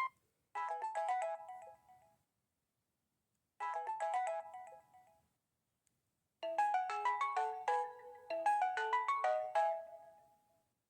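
Samsung SPH-M390 cell phone playing a built-in ringtone: a synthesized melody of quick notes in three phrases with short silent gaps between them, the last phrase running about four seconds.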